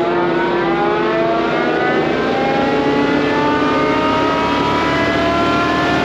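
FAE UML/HY-125VT forestry mulcher's fixed-tooth rotor spinning free off the ground, driven by its hydraulic motor, with a steady machine whine that rises slowly in pitch as the rotor comes up to speed.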